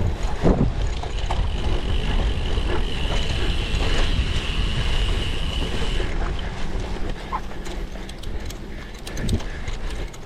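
Cyclocross bike ridden over rough ground: continuous rumble of tyres and rattling bike with wind on the microphone, and a steady high buzz from about one to six seconds in.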